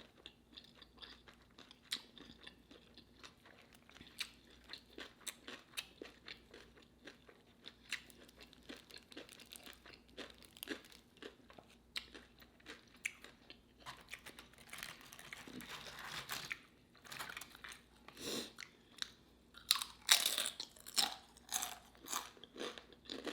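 Close-miked chewing and crunching of crisp pickle food, with many small wet crunches throughout. There are louder clusters of bites and crunches a little past halfway and again near the end.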